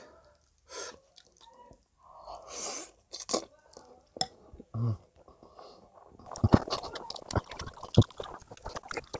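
Close-miked mouth sounds of eating creamy spaghetti carbonara: a few scattered clicks and smacks at first, then wet chewing with many sharp smacks from about six seconds in.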